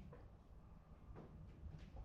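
Near silence: room tone with a few faint light clicks.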